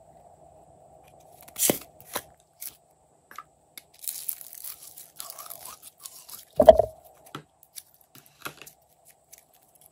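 Handling of a small plastic slime tub: sharp clicks as it is opened, then crackling and squishing as thick glitter slime is pulled out of it, with one heavy thump about two-thirds through. A faint steady hum sits underneath.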